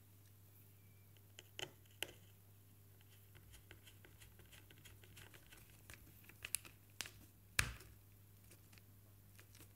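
Small screws and a thin screwdriver clicking and tapping against a plywood control panel as the screws are set into their holes and driven in. The clicks are sparse, with faint rustling in between, and the loudest knock comes about three quarters of the way through.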